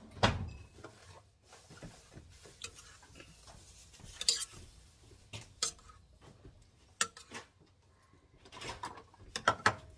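A utensil scraping and clinking against a stainless steel pot and a ceramic plate as food is dished out: scattered clinks and knocks, the loudest just after the start and a quick run of them near the end.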